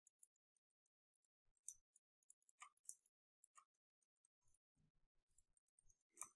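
Near silence: room tone with a few faint, scattered clicks of computer input, bunching together near the end.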